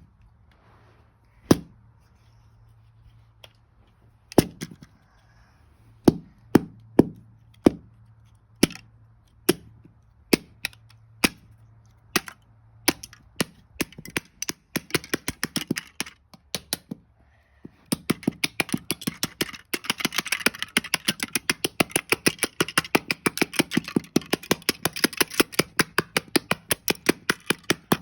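Plastic LEGO bricks being pulled and snapped apart: sharp single clicks a second or two apart at first, then about eighteen seconds in a fast run of clicks, around five a second, over a clatter of loose pieces.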